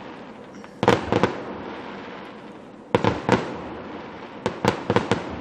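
Aerial fireworks shells bursting: a quick run of three bangs about a second in, two more around three seconds, and four in close succession near the end, each trailing off in an echo.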